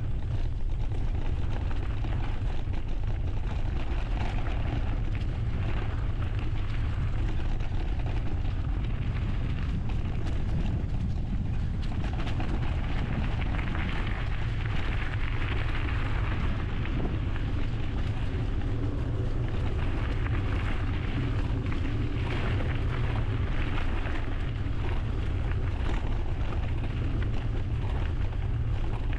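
Wind buffeting an action camera's microphone with a steady low rumble, over the tyre noise and frequent small clicks and rattles of a mountain bike riding along a trail.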